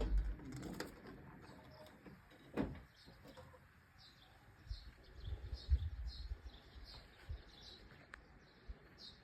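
A small bird chirping repeatedly, short high notes about twice a second from about four seconds in, over intermittent low rumbling. A couple of knocks in the first three seconds.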